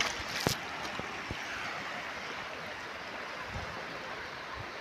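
Steady rushing wash of sea surf on a rocky shore, with a couple of faint clicks in the first second or so.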